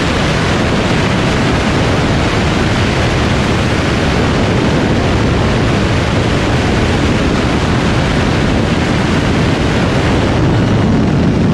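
Loud, steady wind rush buffeting the microphone of a camera mounted low on a fast-moving sport motorcycle, an even roar with no clear engine note standing out.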